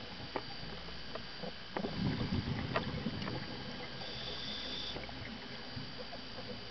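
Scuba regulator breathing underwater: a rush of exhaled bubbles about two seconds in, with scattered sharp clicks and crackles throughout and a thin high hiss of an inhalation around the four-second mark.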